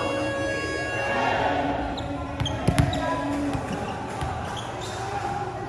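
Volleyball bounced on a hard indoor court floor: a quick cluster of sharp thuds about two and a half seconds in and a few lighter ones after, echoing in a large hall.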